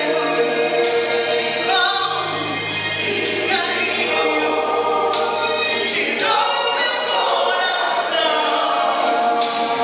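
Mixed church choir singing in harmony, men's and women's voices together, over steady low held notes.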